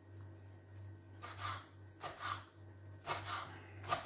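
Kitchen knife cutting through lettuce leaves on a wooden cutting board: about four short cuts, roughly one a second.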